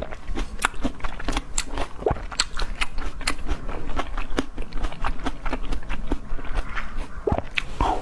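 Close-miked chewing: a person biting and chewing food, with a quick, irregular run of small crisp clicks and crackles.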